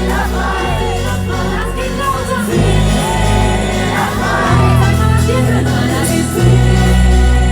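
Live pop band music with a heavy, pulsing bass line. Wordless vocal runs glide up and down over it.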